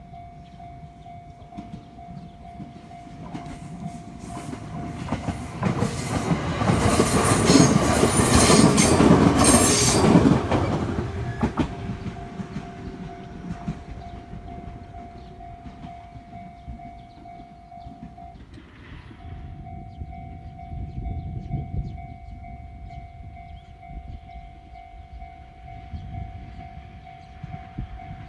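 Level-crossing warning bell ringing steadily while a train passes, loudest from about six to eleven seconds in, with rumble and wheel clatter. The bell keeps ringing after the train has gone and stops briefly about eighteen seconds in.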